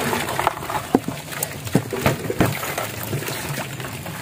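Shallow mangrove creek water splashing and sloshing as someone wades through it. Several sharp knocks come in the first half or so.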